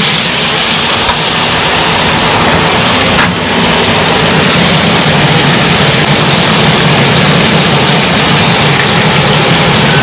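Thin slices of marinated flank steak sizzling in hot olive oil in a frying pan, a loud, steady hiss as more slices are laid in with tongs.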